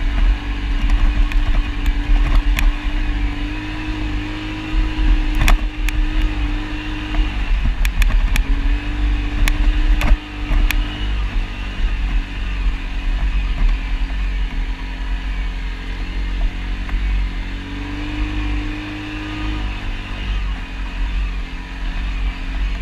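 ATV engine running steadily under way, its pitch stepping up and down a little several times, over a heavy low rumble with scattered knocks.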